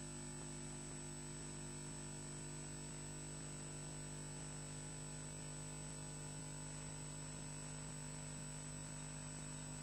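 Steady electrical hum with a faint hiss and a thin high whine, unchanging throughout: the noise of the nest camera's audio feed, with no bird calls heard.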